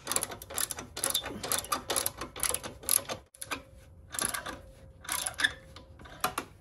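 Socket ratchet clicking in quick runs as it is worked back and forth, tightening a 13 mm exhaust mounting bolt on a motorcycle. The clicking is nearly continuous at first, then comes in shorter separate bursts after a brief pause about three seconds in.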